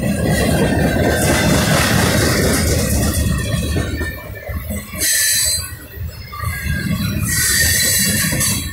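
Norfolk Southern freight train of tank cars and covered hoppers passing close by, its wheels rumbling on the rails. High-pitched wheel squeal comes in twice in the second half, about five seconds in and again near the end.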